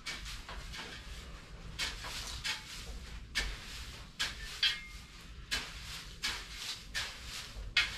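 A series of short scraping strokes, roughly one a second and irregular, with a brief higher squeak a little past the middle.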